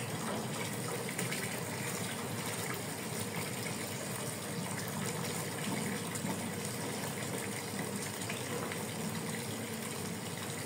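A steady stream of water from a rubber hose pouring into a part-full plastic basin as it fills.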